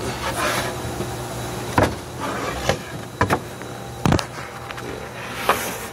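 About five sharp knocks and bumps, with rustling handling noise near the start, over a steady low hum.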